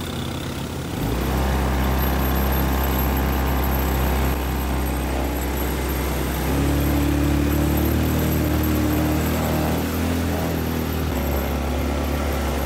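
150cc automatic ATV engine running under throttle. The drone gets louder about a second in and shifts to a higher note around the middle.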